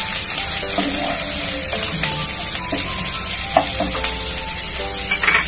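Chopped ginger sizzling steadily as it fries in hot mustard oil in a kadhai, with a few scrapes and knocks of a wooden spatula stirring it against the pan.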